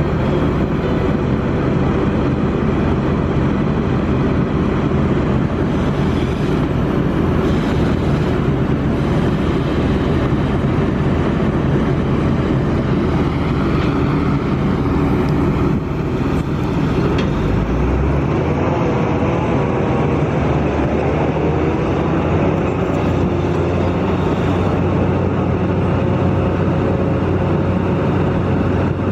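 Kobelco SK200 excavator's diesel engine running steadily under working load while digging. A little past halfway its low engine note shifts.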